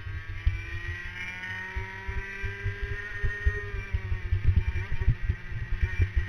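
Racing kart engine heard from an onboard camera on the kart, revving up steadily, easing off about four seconds in, then picking up again, with constant low thumping underneath.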